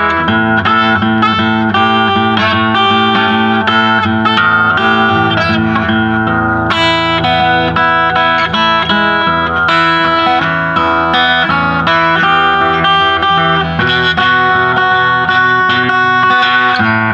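Jumbo acoustic guitar fingerpicked in a blues swing tune, with a steady run of plucked notes over bass notes.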